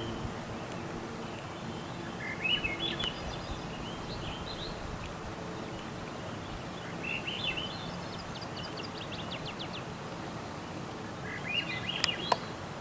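A songbird repeating the same short song three times, each a rising run of notes followed by a fast trill, over steady outdoor background noise. A couple of sharp clicks near the end.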